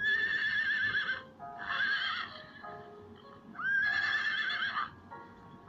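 Horse whinnying three times, each neigh high and quavering, the first and last about a second long. Light background music plays under the calls.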